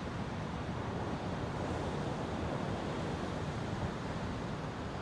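Steady wash of ocean surf and wind, with low wind rumble on the microphone.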